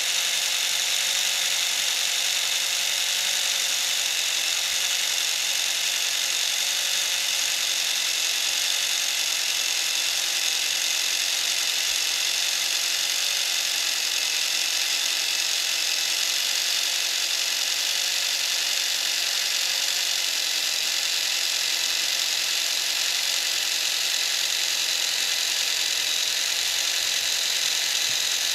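Small electric motor of a 1/24 RC car conversion running steadily, driving a 3D-printed plastic gearbox and rear driveshaft: an even, high whir that holds its pitch throughout.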